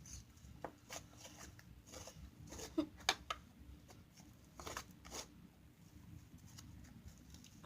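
Homemade fluffy slime (glue and shaving cream) being mixed and worked, giving scattered soft sticky clicks and crackles, a few sharper ones around three and five seconds in.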